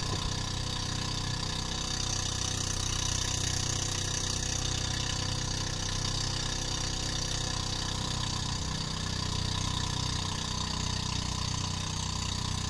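Outrigger boat's engine running steadily under way, under a steady rushing hiss of water spray and wind.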